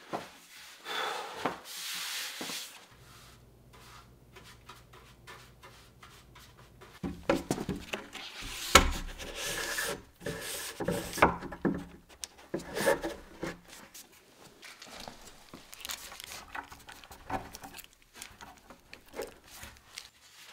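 Wood knocking and rubbing as a roll of craft paper on a wooden bar is handled and fitted into wooden end brackets on a table. The knocks come scattered, busiest and loudest about eight to twelve seconds in.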